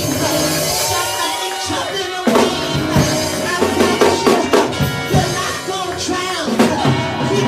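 Church band music: held chords, then drums and the full band come in suddenly a little over two seconds in, with a steady beat.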